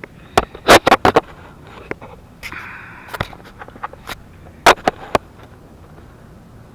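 Handling noise from a small camera being picked up and set down: a series of sharp knocks and bumps right at its microphone, loudest about a second in and again near five seconds, with a brief rustling scrape around three seconds.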